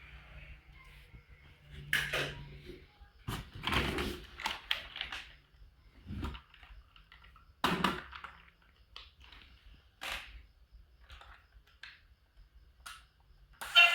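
Toys and their packaging being handled: irregular clicks, knocks and rustles, the loudest about two, four and eight seconds in.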